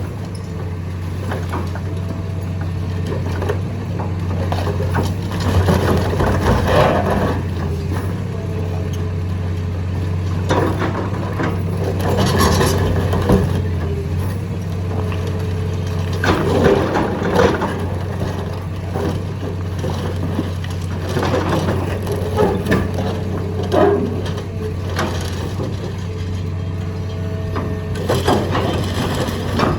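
Excavator's diesel engine running steadily under load while it crushes concrete, with irregular cracking and grinding bursts every few seconds as the concrete breaks. A short whining tone comes and goes.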